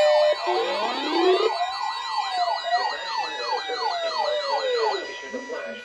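Several electronic siren sounds layered at once: slow wails and quicker yelps sweeping up and down, with a fast high warble and a steady tone. The high warble drops out near the end.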